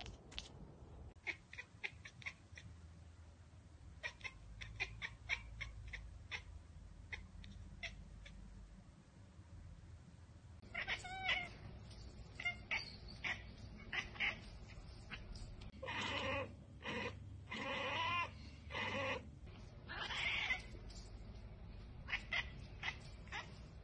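Pet cats chattering at birds: runs of quick, clicking 'ekekek' chirps, then from about eleven seconds in, louder and longer chattering calls in clusters. This is the excited chatter of a cat watching prey it cannot reach.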